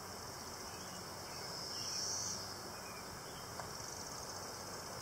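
Honeybees buzzing around an opened hive box while its frames are handled, under a high, shrill insect drone that swells about two seconds in and again near the end. A single light click about three and a half seconds in.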